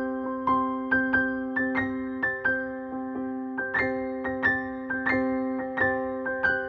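Background music played on a piano-type keyboard: a gentle melody of struck notes, about two a second, over held chords.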